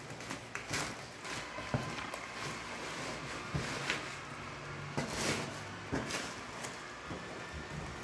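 A plastic-wrapped cardboard box being handled and unwrapped: rustling and scraping of plastic sheeting and cardboard, with scattered short taps and knocks.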